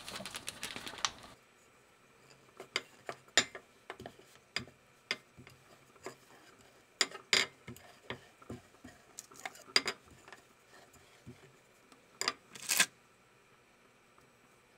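Irregular light clicks and taps of a rolling pin and hands working soft bread dough on a kitchen countertop, with a few louder knocks.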